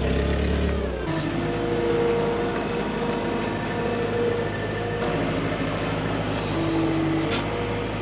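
Farm machinery engines running: a forklift's engine for the first second, then after a cut the engine of a New Holland skid steer loader running steadily, with a higher whine that comes and goes over it.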